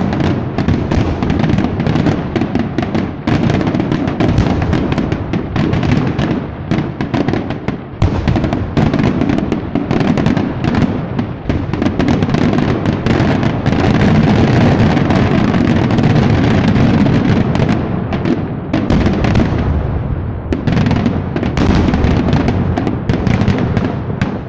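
Aerial fireworks shells bursting in a dense, rapid barrage of bangs with no pauses between them, thinning out over the last few seconds.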